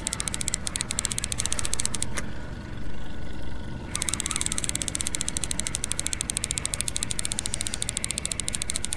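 Fishing reel clicking in a rapid, steady ticking while line is reeled in on a hooked striped bass. The ticking stops about two seconds in and starts again about four seconds in.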